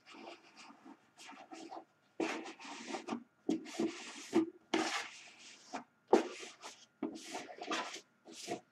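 A cloth rag rubbed and wiped over a two-stroke engine crankcase half in many short, irregular strokes, clearing out the last metal filings.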